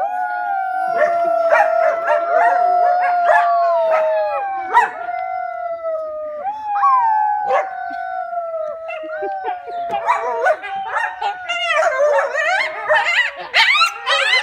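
A group of coyotes howling: several long, overlapping howls that slowly fall in pitch, breaking into quick yips and wavering calls near the end.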